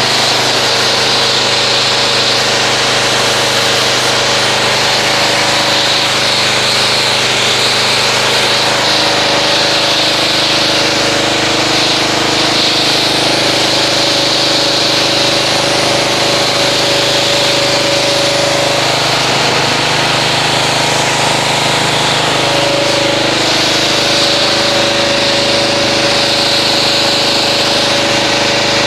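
Pressure washer running steadily, its spray gun jetting water onto a car's paint to rinse off soap foam, with a continuous hiss of spray over the machine's steady hum.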